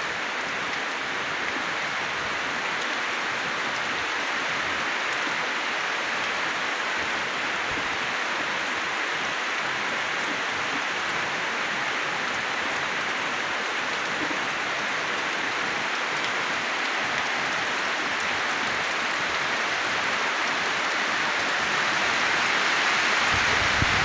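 Steady rain falling on palm fronds and broad tree leaves, an even hiss. A low rumble comes in near the end.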